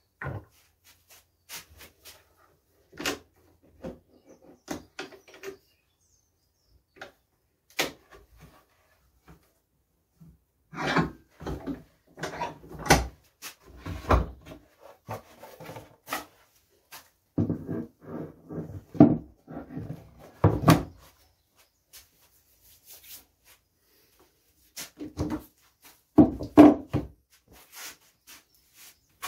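Wooden pieces and tools being handled and set down on a wooden workbench: scattered clicks and knocks, with clusters of heavier wooden thuds and scraping about halfway through and again near the end.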